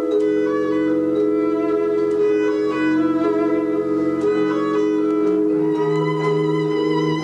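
Instrumental jazz orchestra arrangement of a rock song: sustained chords held under a melody that moves above them.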